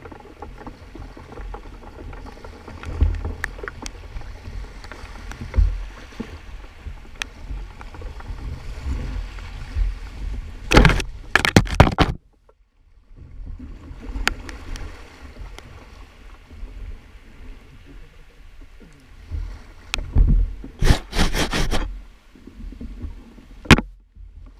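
Kayak paddling down a shallow, rocky river: paddle blades splash and knock against the steady rush of moving water, over a low rumble. Twice, about 11 s and 21 s in, loud clusters of splashes and knocks hit close to the microphone, and the first is followed by a brief dropout to near silence.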